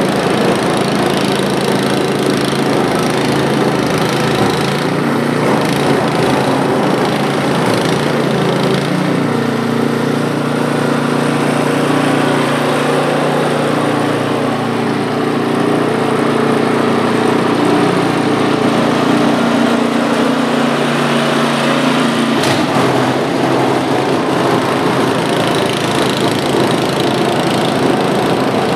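Poulan Pro PP521ES single-stage snowblower's 136cc four-stroke engine running steadily under load while its auger throws snow, a continuous engine drone with a rushing hiss. For a stretch in the middle the engine's hum stands out more clearly, and a single sharp click comes about two-thirds of the way through.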